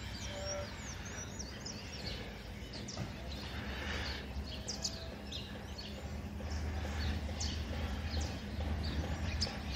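Small birds chirping and twittering in short, quick calls over a steady low background rumble.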